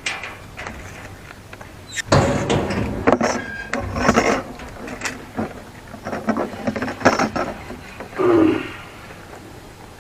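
Handling noise as megger test leads are moved onto the cable cores: irregular clicks, knocks and rustling.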